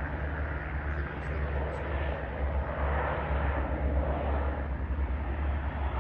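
Distant firefighting seaplane's engines droning steadily as it skims the sea surface scooping water, swelling a little midway, over a constant low rumble.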